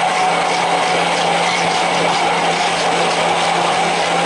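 Electric immersion hand blender running steadily with a constant motor hum, puréeing cooked khichuri into baby food in a tall plastic cup.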